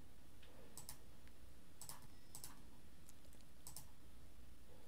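About five sharp computer mouse clicks, spaced irregularly, over faint low background noise.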